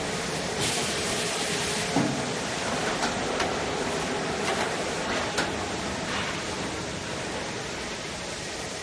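Plastic pipe threading machine running: a steady hissing machine noise with a few sharp clicks and knocks at irregular intervals, the loudest about two seconds in.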